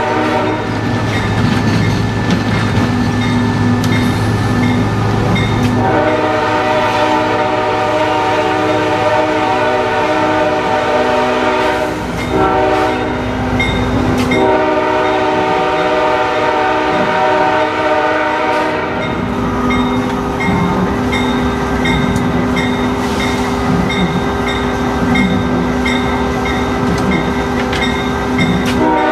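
A locomotive air horn heard from inside the cab. From about six seconds in it sounds a long blast, then a short one, then another long one, ending about two-thirds of the way through. A steady low engine hum runs under it, and in the last third a regular ringing of the locomotive bell continues while the horn is silent.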